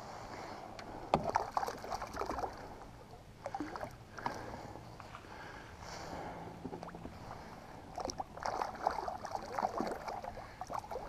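Water splashing and sloshing at a kayak in irregular bursts, with small knocks and crackles between them.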